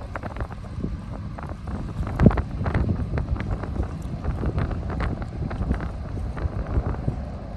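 Wind buffeting the microphone in uneven gusts, a dense low rumble with short blasts, the strongest about two seconds in.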